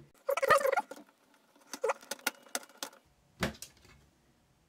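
Small metallic clicks and rattles of a screwdriver turning a screw into a cassette deck's metal chassis: a short burst of rattling clicks about a third of a second in, then scattered single ticks, with a last click about three and a half seconds in.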